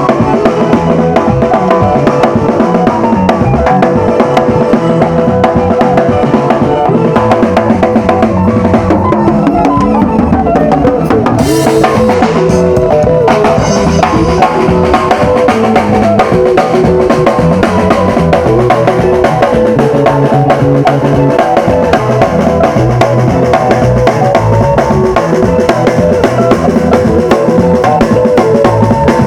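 Loud music with a drum kit keeping a steady beat under sustained pitched instruments.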